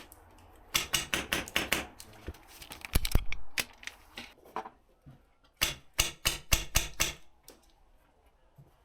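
Airsoft guns firing in quick strings of sharp shots, about five a second, in three volleys. The last volley comes near the end and is the longest.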